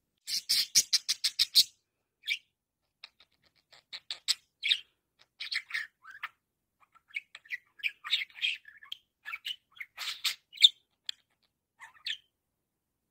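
Budgerigar chirping and chattering: a quick run of about ten sharp chirps in the first second and a half, then scattered chirps and warbled notes.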